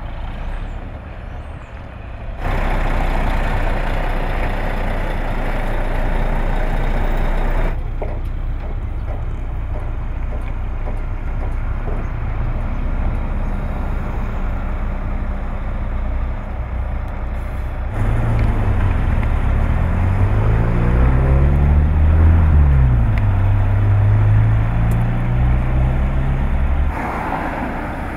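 Semi truck's diesel engine running as it hauls a heavy lowboy trailer carrying a steam locomotive, with sudden jumps in level a few times. In the second half the engine note rises and falls repeatedly as the truck revs and shifts through its gears.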